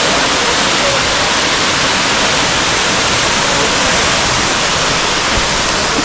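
A small waterfall's falling water makes a loud, steady rush with no let-up.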